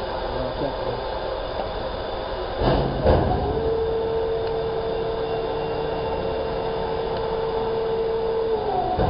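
Large-format laser marking machine running with a steady mechanical hum. A couple of short clunks come about a third of the way in, then a motor whine rises, holds one steady pitch for about five seconds and falls away near the end, as the gantry carrying the marking head moves.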